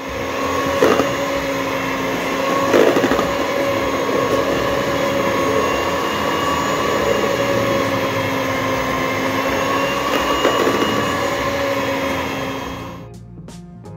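Philips electric hand mixer running steadily, its beaters whipping a thick batter of butter, margarine, sugar, eggs and coconut milk, with a few brief knocks along the way. It cuts off near the end.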